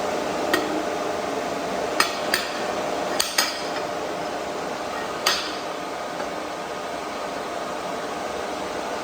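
Six sharp metal knocks and clinks within the first five and a half seconds, over a steady machine fan hum.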